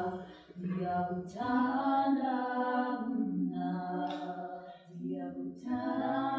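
Unaccompanied vocal singing in long held notes, in several phrases with short breaks between them.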